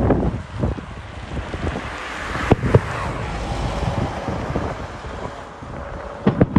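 Distant fireworks shells bursting with sharp bangs, two about two and a half seconds in and two more near the end, over steady wind noise on the microphone.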